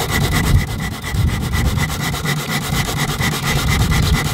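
Handheld electric sander running steadily on teak deck planks, sanding new teak bungs flush with the deck. Its motor whine and rapid buzz hold steady throughout.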